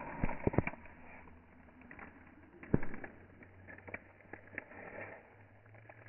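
A dove cooing low and steadily, with several sharp clicks over it, the loudest about three seconds in.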